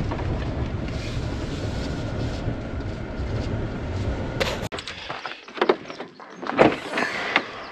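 Pickup truck driving slowly, a steady rumble heard from inside the cab, which stops about four and a half seconds in. A sharp click follows, then a few short clunks and knocks as the truck is left and the latch of a Case IH baler's side door is worked.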